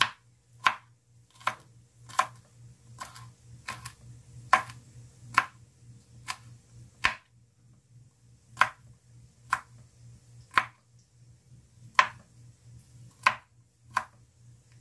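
Kitchen knife chopping garlic cloves on a wooden cutting board: single, unhurried knocks of the blade on the board, roughly one a second.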